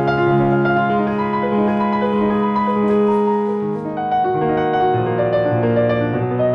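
Background piano music: a slow piece of long held notes that move from chord to chord.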